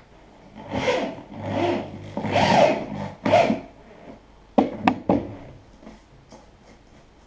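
Wood scraping and rasping: four strokes of about half a second each, then three sharp clicks or knocks about five seconds in.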